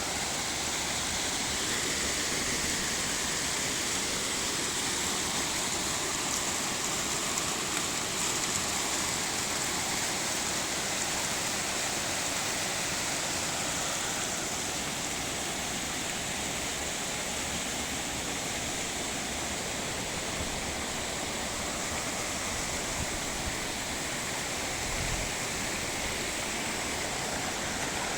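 Steady rushing of a small waterfall, water sliding down smooth rock chutes.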